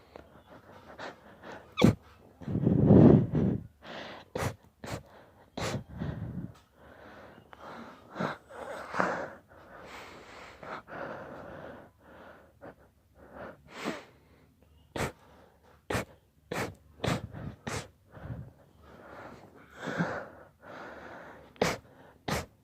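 A person in an induced sneezing fit: a loud sneeze about three seconds in, then many short, sharp sneezes and sniffs with wheezy, breathy gasps between them.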